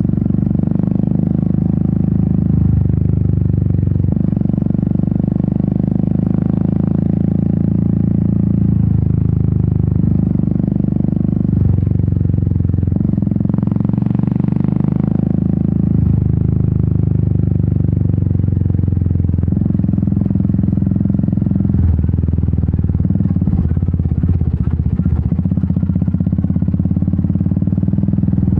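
Royal Enfield Meteor 350's single-cylinder engine and exhaust running at low road speed, its note changing every few seconds as the throttle opens and closes, with clatter from riding over a rough dirt road.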